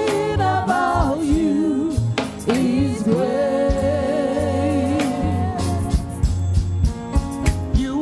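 Gospel praise-and-worship music: a singer holding long notes with vibrato over a band with bass and drums.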